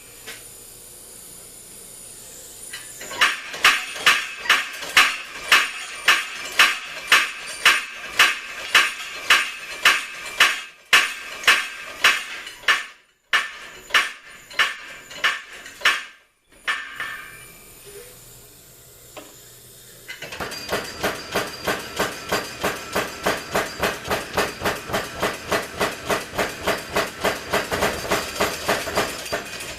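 Homemade belt-driven power hammer running and striking repeatedly as it flattens a wooden stick. Blows come about two a second, then slow and stop; after a short pause the hammer starts again faster, about three to four blows a second.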